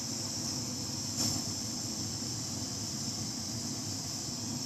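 Rothenberger Multigas 300 propane-butane hand torch burning, its flame making a steady hiss with a low rumble, with one faint click about a second in.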